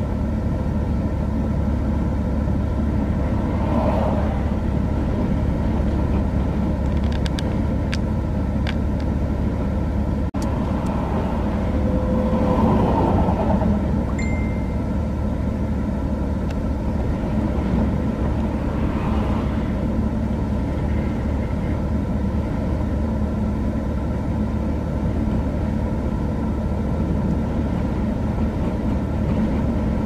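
Strong wind blowing across the microphone in a steady low rumble, with highway traffic passing close by. The sound swells several times as vehicles go past, the largest swell about twelve seconds in, when a semi truck passes.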